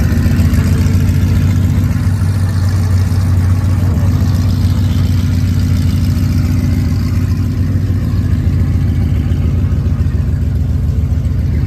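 A car's V8 engine idling steadily with a deep, even burble.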